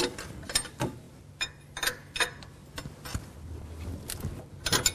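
Wrench turning the nut of an injector cup sleeve puller, clockwise, drawing a cracked brass injector cup sleeve out of the diesel cylinder head. It makes a series of irregular metallic clicks and creaks, about one or two a second.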